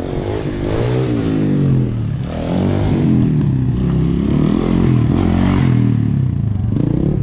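Yamaha Blaster's single-cylinder two-stroke engine revving up and easing off again and again.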